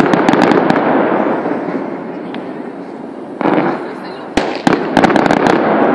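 Fireworks going off: a quick run of sharp cracks in the first second, a heavier burst about three and a half seconds in, then another cluster of sharp bangs.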